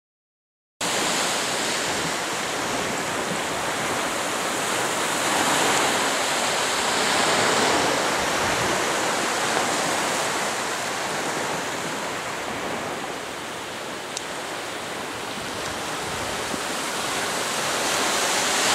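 Small waves breaking and washing up on a beach, a steady surf hiss that swells and eases slowly over several seconds. It starts abruptly about a second in.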